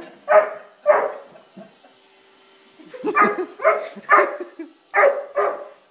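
A Doberman barking at a robot vacuum: two barks, a pause of about two seconds, then a run of about five barks.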